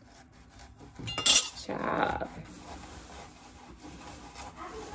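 Kitchen utensils clinking and scraping at the counter, with one sharp metallic clink about a second in followed by a brief scrape.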